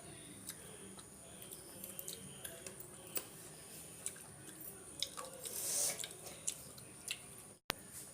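Close-up eating sounds of rice with dal and curries: wet chewing, squishing and smacking mouth clicks, with a louder wet slurp-like burst a little past halfway. The sound cuts out for an instant near the end.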